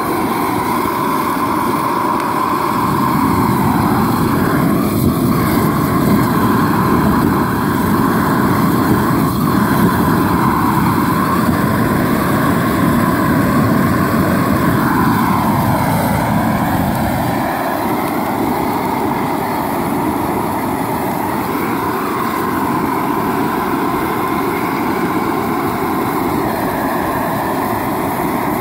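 MagFire+ 500,000 BTU propane weed-burner torch running at full flame: a loud, steady rush with a hum through it, its deeper part easing a little past the middle.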